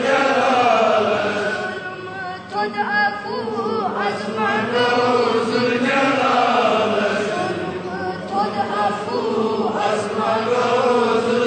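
Kashmiri naat, Islamic devotional song, sung without instruments: long held notes broken by quavering, ornamented runs, with the singing dipping briefly about two seconds in and again near eight seconds.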